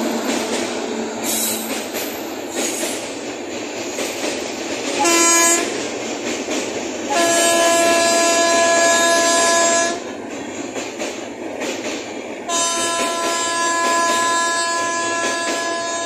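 Long passenger train running past on the rails with steady wheel clatter and rumble. A train horn sounds three times: a short toot about five seconds in, a blast of about three seconds starting about seven seconds in, and another long blast from about twelve and a half seconds in.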